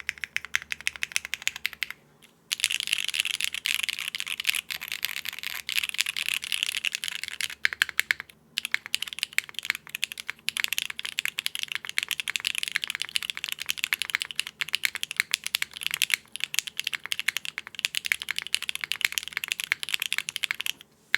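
Fast typing on a Cycle7 mechanical keyboard with factory-lubed BSUN Strawberry Wine V1 linear switches, a polypropylene plate, no case foam and GMK keycaps: a dense run of clacking keystrokes. The typing pauses briefly about two seconds in and again about eight and a half seconds in, and stops near the end.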